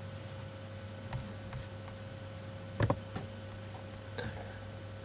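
Quiet room tone with a steady hum, a few faint ticks, and one sharper click just under three seconds in.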